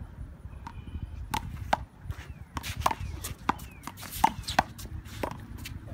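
A one-wall handball rally: a quick, irregular series of about ten sharp smacks as the rubber ball is struck by gloved hands, hits the concrete wall and bounces on the court.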